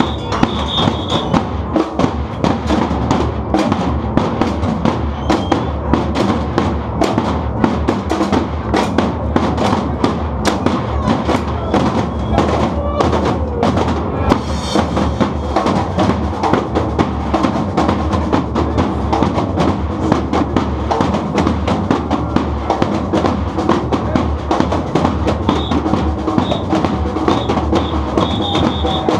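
A drum ensemble playing a dense, driving percussion rhythm, with many drums struck together, including bass and snare drums.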